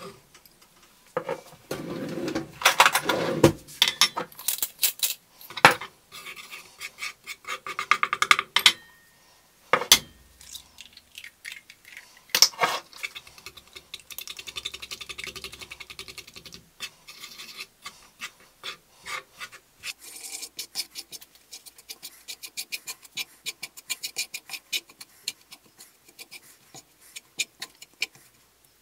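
Hands kneading fresh pasta dough on a floured wooden chopping board: rubbing, pressing and scraping, with scattered knocks of the board. A quick run of small clicks fills the second half.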